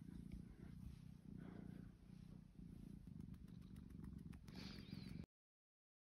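A tabby house cat purring faintly while being stroked, a low pulsing rhythm that stops abruptly about five seconds in.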